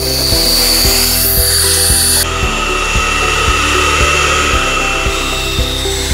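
Handheld hair dryer running, blowing on freshly painted plaster to dry it, with a rushing airflow and a high motor whine that drops to a lower pitch about two seconds in. Background music with a steady beat plays underneath.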